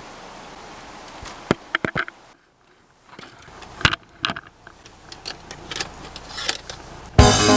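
A few sharp clicks and light handling rustles over faint steady room noise, with a short silent gap in the middle. Background music with a beat starts right at the end.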